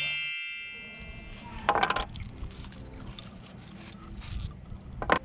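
A bright metallic ding rings out at the start and fades over about a second. It is followed by light knocks and clinks from handling, a clunk about two seconds in and a sharp click near the end.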